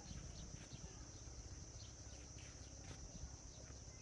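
Faint outdoor ambience: a steady, high-pitched insect drone, like crickets or cicadas, over a low rumble, with a few faint ticks.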